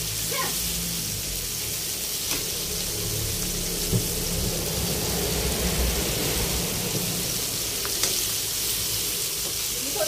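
Seasoned chicken skin deep-frying in hot oil: a steady sizzle of oil bubbling, with a few sharp clicks.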